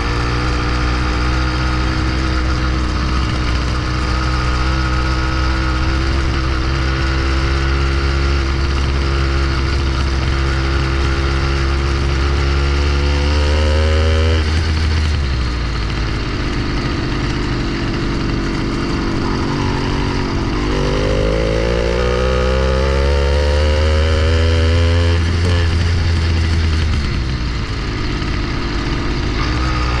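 80cc two-stroke motorized bicycle engine running under way on a test ride. It runs steadily, climbs in pitch and drops back about halfway through, then climbs again a few seconds later and eases off near the end.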